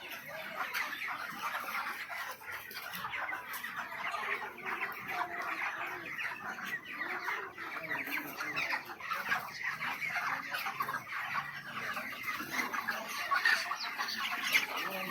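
A large flock of chickens clucking and calling, many short calls overlapping in a steady din.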